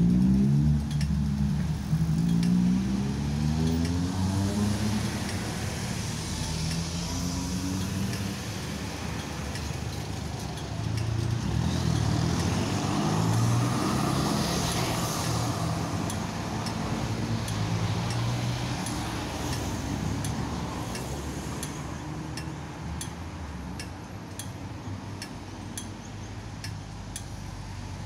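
Street traffic: cars pulling away and passing, with engine notes rising and falling. About halfway through, a Melbourne Z3-class tram rolls past close by, a louder rush of wheels and motor that fades away. A faint, steady high ticking runs under the traffic.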